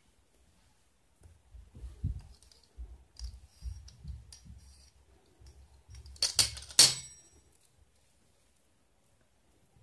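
Pizza cutter rolled across cookie dough on a plastic-covered tabletop: dull, low bumps and rubbing, then a few sharp clacks about six seconds in, the loudest sounds, as the cutter is put down.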